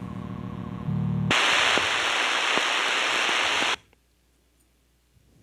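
Audio from an RTL-SDR radio scanner: a steady, rhythmic tone-like buzz, then a brief louder low buzz, then about two and a half seconds of loud radio static that cuts off abruptly, leaving near silence.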